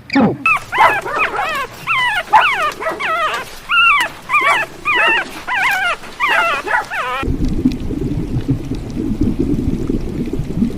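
A dog whimpering and yipping in a quick run of short, wavering, high cries. About seven seconds in, the cries stop abruptly and a steady low rumbling noise takes over.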